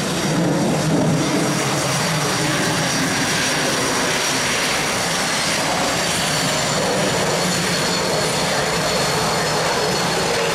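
Northrop F-5E Tiger II fighter jets taxiing past one after another, their twin General Electric J85 turbojets running at low taxi power: a steady rushing jet noise with a high whine.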